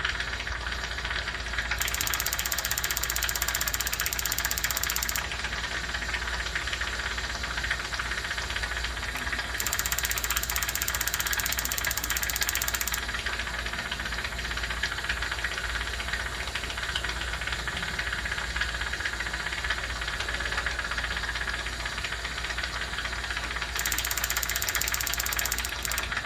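Jeweler's soldering torch setup running with a steady mechanical hum and hiss, broken three times by a few seconds of sharper high hiss.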